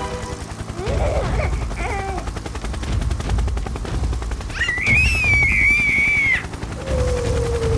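Edited sound effects over a rapid low chopping. A rising squeal comes about a second in, a high wavering whistle lasts under two seconds around the middle, and a lower falling tone comes near the end.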